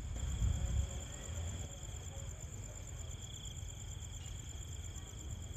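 Night insects, likely crickets, trilling steadily in a high-pitched, rapidly pulsing chorus, over a low rumble that is strongest in the first second.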